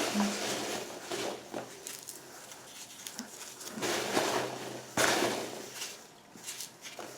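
Packing peanuts rustling as a hand rummages through them in a cardboard box, in irregular spells with short pauses between.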